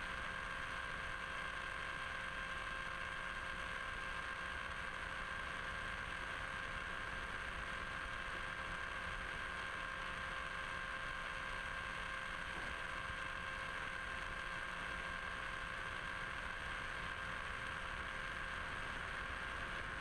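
Electric motor and propeller of a Blitz RC Super Skysurfer model plane in flight, a steady whine at constant pitch over the rush of the airflow past the onboard camera.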